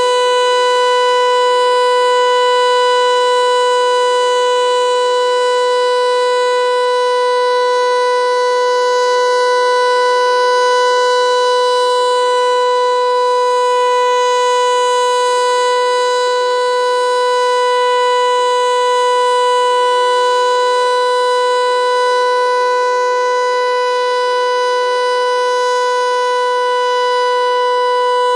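Federal Signal Eclipse 8 electronic siren sounding its steady alert signal: one loud, unwavering tone, rich in overtones, held without any rise or fall in pitch.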